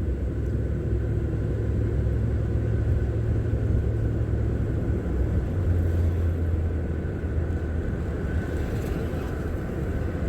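Steady road and engine rumble of a vehicle heard from inside the cabin while driving. The low drone steps down slightly about halfway through.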